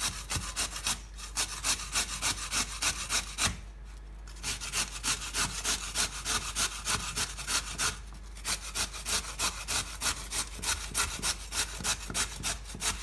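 A carrot being grated on a stainless-steel cone grater: quick rasping strokes, about four a second, with two or three short breaks.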